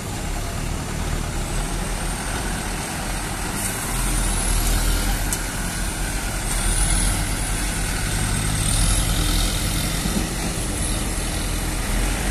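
Heavily loaded cargo truck's diesel engine pulling away up a ferry landing ramp, a steady low rumble that grows louder about four seconds in as the truck drives past.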